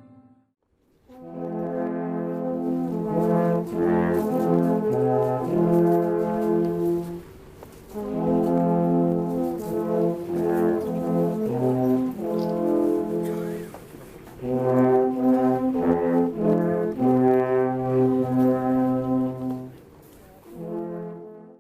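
Brass ensemble playing slow, held chords in three phrases, with short breaks between them.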